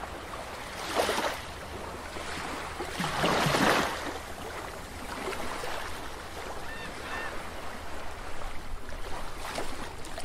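Underwater-style sound effects for an animated logo: a steady watery hiss with a whoosh about a second in and a longer, louder rushing swell around three to four seconds in, then two faint short chirps near the seven-second mark.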